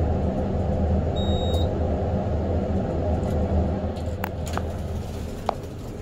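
Low steady rumble of an elevator car running, with one short high beep about a second in. The rumble dies away over the last two seconds, with a few sharp clicks.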